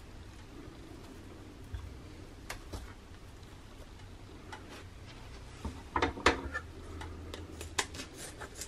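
A few faint taps as food pieces are set down, then, from about six seconds in, a run of crinkles and crackles as a plastic-wrapped pack of fried tofu is picked up and handled.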